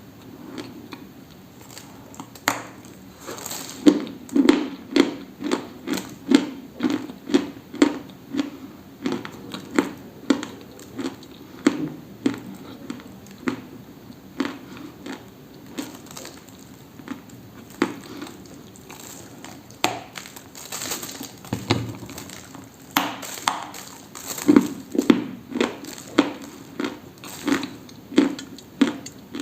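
Dry crunching: a run of sharp, crisp crunches at about two a second, thinning out for a few seconds midway before picking up again.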